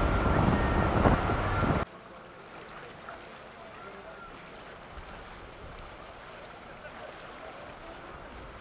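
Boat engine and wind noise on the microphone, loud and steady, cutting off abruptly about two seconds in. After that comes a much quieter, steady background of boats on the water.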